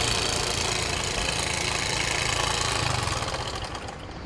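Small motor scooter engine running as it rides along a street, with road and wind noise. The sound eases off near the end as the scooter slows to a stop.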